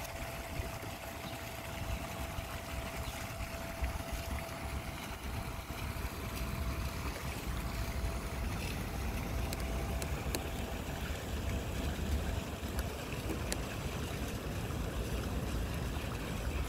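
Wind rumbling on the microphone over an even water hiss, with a faint steady whine from a radio-controlled model cruiser's electric drive that fades out about ten seconds in. A couple of faint clicks near the end.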